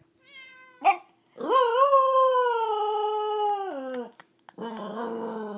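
A Welsh corgi howling: one long howl starting about a second in that holds its pitch and drops at the end, then a second, lower howl near the end, set off by the meows of a phone's cat piano app.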